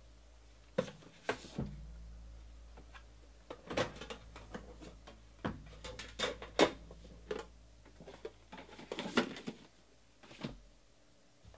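Cardboard Panini Immaculate Collection football card box being opened and handled on a table: a string of knocks, taps and short scrapes as the lid comes off and the inner box is lifted out, the loudest a little after the middle.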